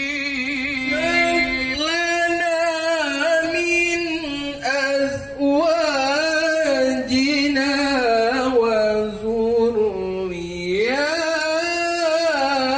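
A single voice chanting a long, ornamented melodic line in the style of Quranic recitation, holding wavering notes and sliding between pitches. It dips lower about ten seconds in, then rises again.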